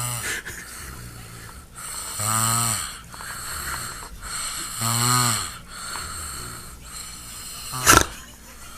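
A sleeping person snoring heavily, with loud snores roughly every two and a half seconds and quieter breaths between. A single sharp click near the end is the loudest sound.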